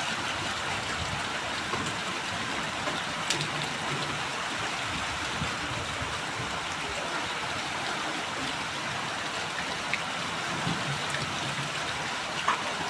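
Heavy rain falling steadily, a dense even hiss with a few sharper drip ticks.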